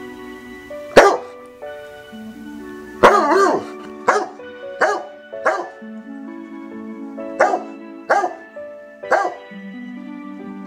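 A dog barks about eight times in short, sharp barks, with one longer, wavering bark about three seconds in, over background music of steady held notes.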